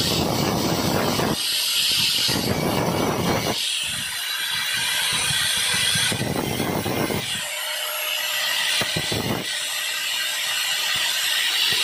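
Electric angle grinder running with an abrasive disc, grinding the slotted end of a metal tube. The grinding noise swells each time the tube is pressed on and eases between passes, several times over.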